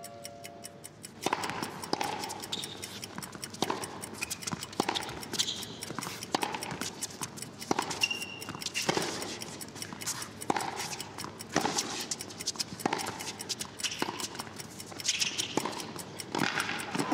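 A sparse run of sharp ticks and clicks over a faint hiss, starting about a second in, at roughly two a second but unevenly spaced. A brief high tone sounds about eight seconds in.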